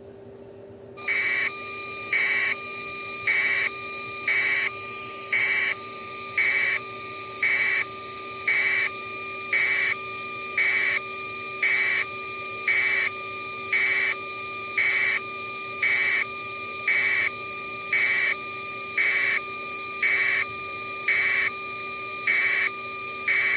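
Electronic beeping or buzzing that starts about a second in: a steady high tone with a regular pulse about once a second.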